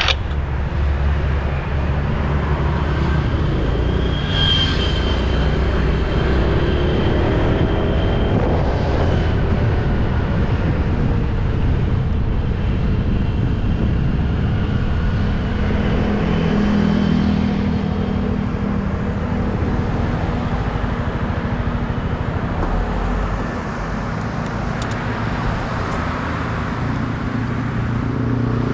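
Motorbike engine running with wind and road noise while riding along a road, the engine note shifting as it speeds up and slows, with a brief drop in level near the end.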